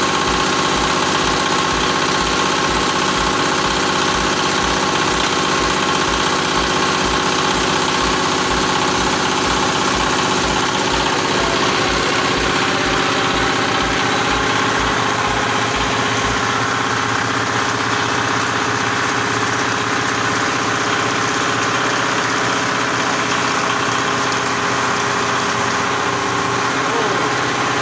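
Diesel engine powering a hydraulic baling press, running steadily. A low pulsing, about two beats a second, stops about two-thirds of the way through while the engine keeps running.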